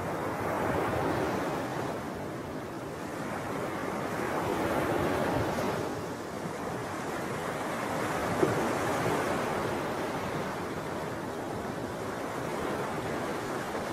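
Steady rushing of wind and small waves on a shallow lake, swelling and fading slowly every few seconds, with one brief tick about eight seconds in.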